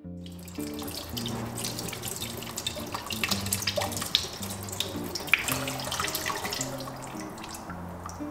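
Tap water running and splashing into a sink while baby potatoes are scrubbed clean with a bristle brush under the stream. Soft acoustic guitar music plays underneath.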